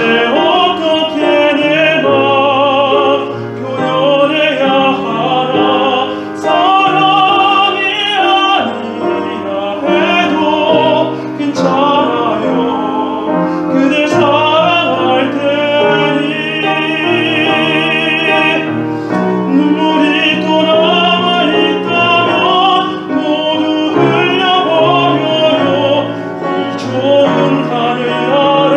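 A classically trained singer singing in operatic style with strong vibrato, accompanied by piano.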